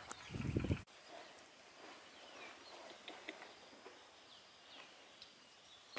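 Faint rural outdoor ambience with a few distant bird chirps. A brief low rumble at the start cuts off abruptly just under a second in.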